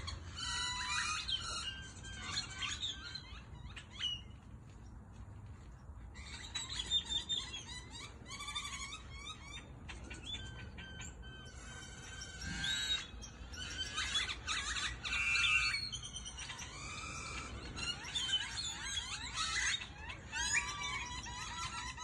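Many birds chirping at once: a dense chorus of overlapping chirps and whistles that thins briefly about four seconds in, then fills back up.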